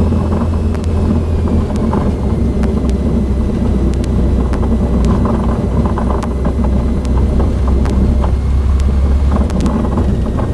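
Cessna 152's four-cylinder Lycoming piston engine running steadily, its low drone heard from inside the cockpit, with scattered light clicks and a faint high whine that drops slightly in pitch about two seconds in.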